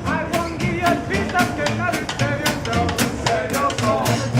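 Music with drums keeping a steady beat and a sliding melody line over it.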